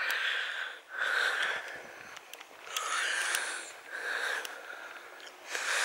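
A walker breathing heavily close to the microphone, about five audible breaths at roughly one-second intervals, with a few faint clicks.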